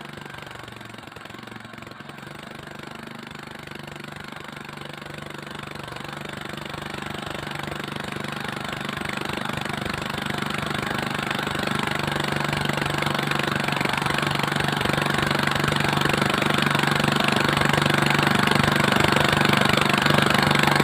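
Greaves MK12 (Villiers-type) single-cylinder four-stroke kerosene pump engine running steadily just after starting, growing gradually louder throughout. It runs now that its magneto timing has been put right after a broken connecting rod sheared the magneto's lock.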